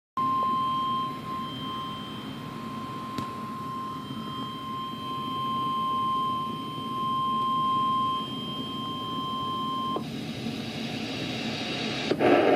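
NOAA Weather Radio's 1050 Hz warning alarm tone, sounded as a weekly test: one steady high tone held for about ten seconds and then cut off, over a bed of radio noise. An announcer's voice starts near the end.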